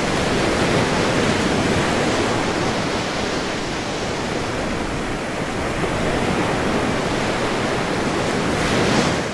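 Ocean-waves sleep sound: a steady wash of surf, swelling a little near the end.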